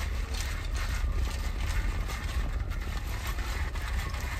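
Plastic straw being worked up and down through the lid of a plastic cup of iced tea, a quick run of scraping, ratchet-like clicks, over a steady low hum.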